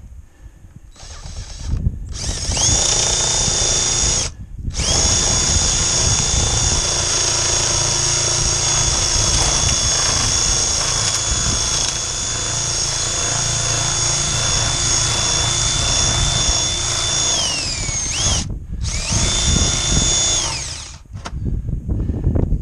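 Power-driven Malco corrugated metal shears cutting through a steel roof panel: a motor whine that starts a couple of seconds in, stops briefly, runs on steadily, winds down with a falling pitch, then runs again for a short burst near the end.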